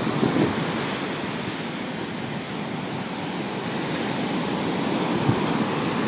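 Surf breaking and washing up a sandy beach: a steady rush of waves that grows a little louder in the second half.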